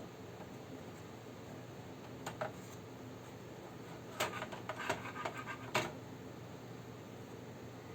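Small sharp clicks and scratches from hands working on a graphics card's parts: a couple of clicks about two seconds in, then a quick run of clicks between about four and six seconds in, over a steady low hum.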